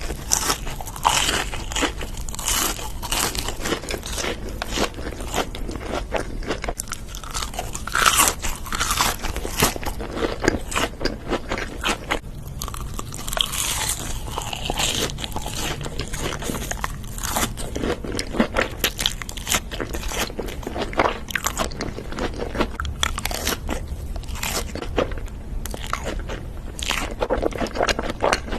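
Close-miked eating of crunchy food: a long, irregular run of crisp bites and crunching chews, with no pause.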